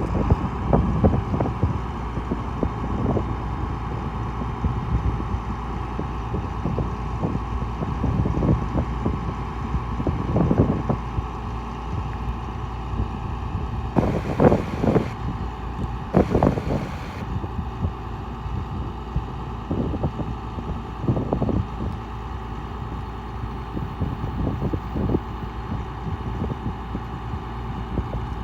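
A 1996 International 4900 truck engine running steadily with a low hum, broken by irregular low thumps. Two short bursts of hiss come about 14 and 16 seconds in.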